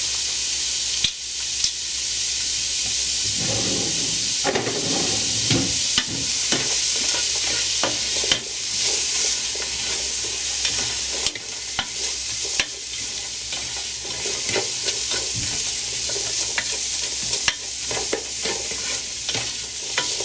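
Diced onion and cumin sizzling in hot oil in a metal pot while a spatula stirs them, scraping and clicking against the pot's bottom and sides many times. The onion is being cooked to soften it.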